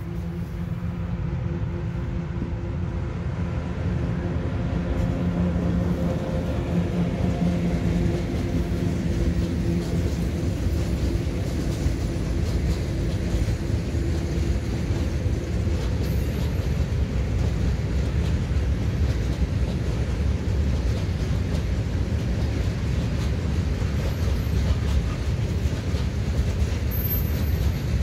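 A train passing: a locomotive's steady hum for the first several seconds fades, giving way to a continuous rumble of wheels on rails that holds to the end.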